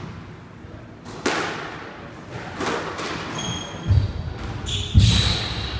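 Squash rally on a glass-backed court. The ball cracks sharply off racquets and walls, each hit ringing in the court, and shoes squeak on the wooden floor. There are two heavy thuds near the end, the second the loudest sound.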